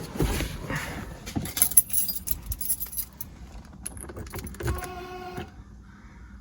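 Irregular light metallic jingling and clinking, with a brief steady buzzing tone about five seconds in.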